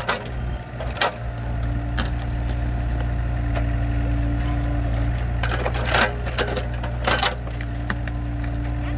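Mini excavator engine running steadily under load while its bucket wrenches at an acacia tree stump, with a few sharp cracks, about one, two, six and seven seconds in, as the stump and its roots are strained.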